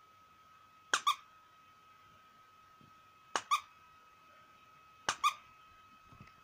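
Plush dog toy's squeaker squeezed three times, each squeeze giving a quick double squeak as it is pressed and let go, while a Yorkshire terrier mouths the toy.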